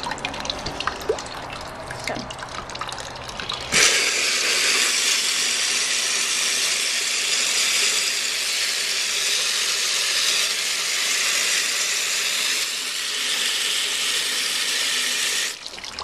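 A custom-built toilet flushing with the water pressure turned all the way up: water rushes in and swirls in the bowl. The flush starts suddenly about four seconds in, after a few faint knocks, runs steadily, and cuts off abruptly just before the end.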